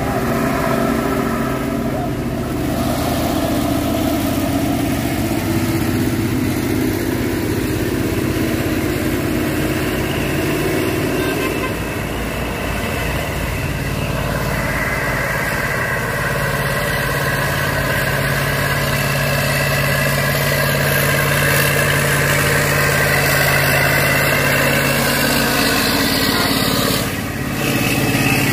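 Road traffic on a hill climb: diesel trucks and cars driving past with their engines running. A steady engine hum holds through the second half and breaks off briefly near the end.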